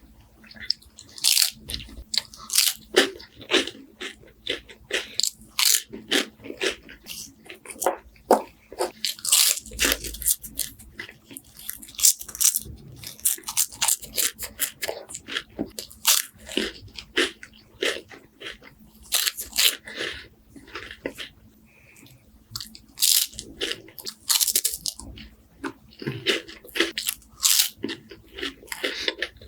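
Close-miked biting and chewing of crispy wafers: a dense run of sharp, irregular crunches and crackles, in clusters with short pauses between bites.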